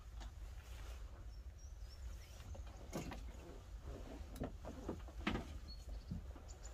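A van's front seat on a camper swivel base being released and turned by hand: a few separate mechanical clicks and knocks, the loudest about five seconds in.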